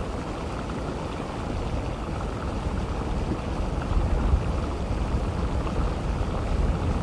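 Geothermal steam vent (fumarole) venting with a continuous rushing noise, mostly low with a deep rumble underneath, swelling slightly about four seconds in.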